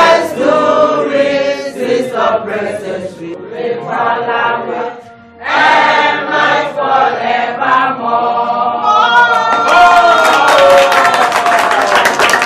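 A group of adult voices singing together in unison, pausing briefly about five seconds in. Hand claps join in over the last few seconds.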